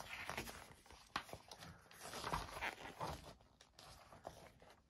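Glossy magazine pages being handled and turned: faint paper rustles and a scattering of light taps.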